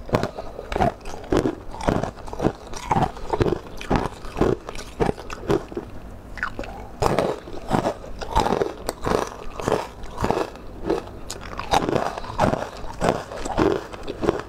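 Close-miked biting and chewing of crunchy ice chunks and dried red dates, with sharp crunches coming irregularly, a few a second.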